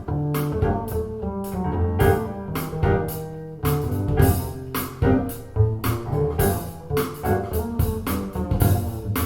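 Instrumental music played back through PSB Alpha P5 bookshelf speakers: sharp plucked notes over a bass line.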